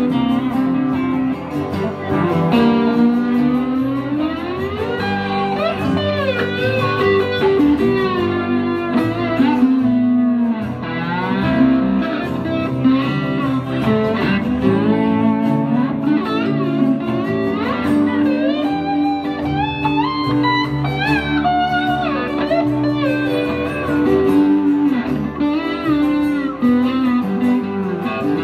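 Live blues band playing an instrumental break: electric and acoustic guitars and upright bass, with a lead line of sliding, bending notes over the steady accompaniment.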